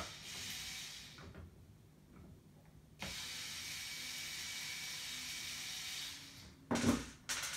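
Small cordless electric screwdriver running in two spells, a short one at the start and a steady one of about three seconds starting suddenly about three seconds in, backing out M4 screws. A few sharp clicks follow near the end.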